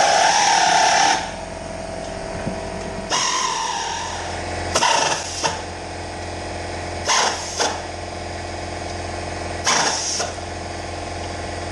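Pneumatic air ratchet run in short bursts while bolts on the plow frame are driven and tightened: one longer whirring run that stops about a second in, then brief bursts every two seconds or so. A steady machine hum underneath.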